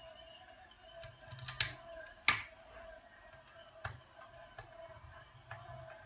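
Scattered clicks and taps of hard plastic parts being handled during disassembly of an Ilife A4 robot vacuum, with one sharp, louder click about two seconds in.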